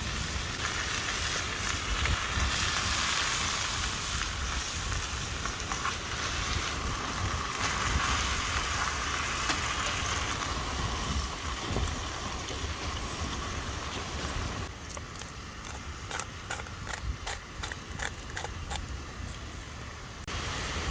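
Cabbage sizzling in a mess tin over a campfire, a steady hiss, with wind rumbling on the microphone underneath. About fifteen seconds in, the hiss eases and a run of sharp crackles and pops takes over.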